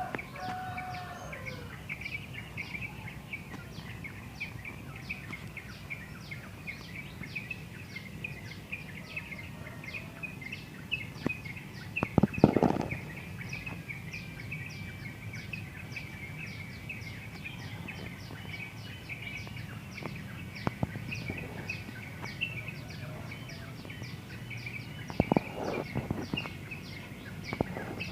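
Morning bird chorus: many small birds chirping densely and without pause, over a steady low background rumble. Two short, louder noises break in, one about twelve seconds in and one about twenty-five seconds in.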